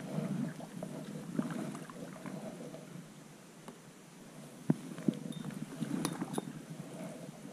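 Kayak paddling: the double-bladed paddle dips and splashes through the water in uneven strokes. A few sharp clicks or knocks come in the second half, likely the paddle shaft touching the plastic sit-on-top kayak.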